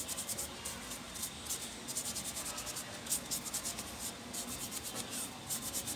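Quick repeated scratchy rubbing strokes as a dirty 18-volt plastic cooling fan is wiped and scrubbed clean by hand.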